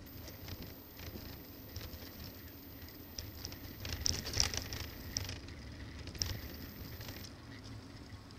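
Bicycle ride on rough pavement: a low rumble of wind and road with scattered rattles and clicks, a cluster of them about four seconds in.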